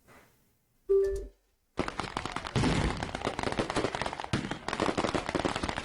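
A brief steady tone about a second in. Then, from about two seconds in, a rapid, unbroken string of firework bangs and crackles, many pops in quick succession.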